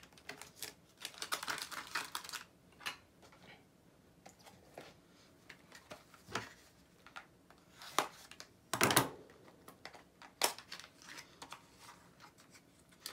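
Small cardboard blind box and its pin packaging being handled and opened by hand: scattered rustling and light clicks, with a sharper knock about nine seconds in.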